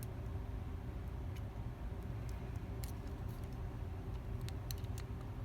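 Faint light clicks and scrapes of a lock pick probing the pins inside a Mako 227 lock, more frequent about three seconds in, over a steady low hum.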